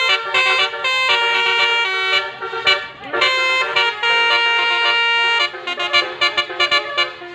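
Indonesian bus 'telolet' multi-tone air horns playing quick stepping melodic toots, several notes sounding together. The notes break into short choppy toots in the last second or two.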